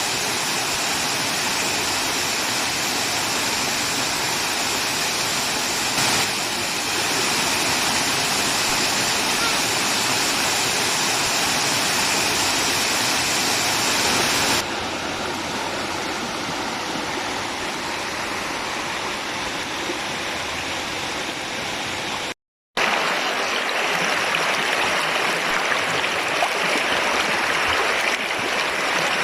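Steady rushing of falling and flowing water. The sound changes abruptly about halfway through, cuts out for a moment about three-quarters of the way in, then comes back louder.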